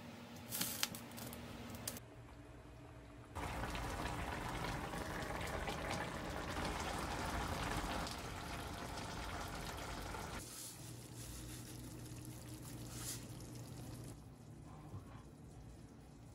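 Braised spicy chicken stew bubbling and seething as it simmers in a frying pan. Near the start a wooden spatula knocks against the pan a few times as the ingredients are stirred.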